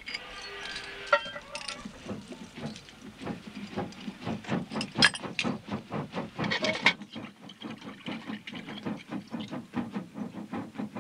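Blacksmith's forge at work: a short hiss, then a fast, even rhythm of knocks, about three or four a second.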